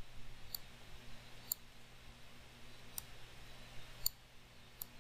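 Computer mouse clicking: about five short, sharp clicks at uneven spacing, roughly a second apart, over a faint steady low hum.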